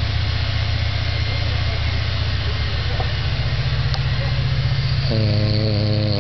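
An old man snoring: a steady low rattling drone, joined about five seconds in by a buzzing, pitched note lasting about a second.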